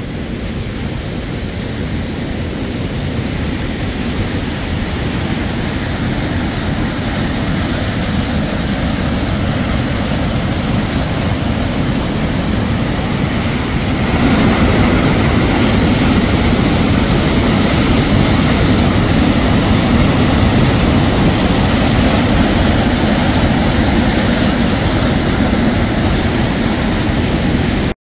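Mountain waterfall rushing steadily over rock, louder and closer from about halfway through.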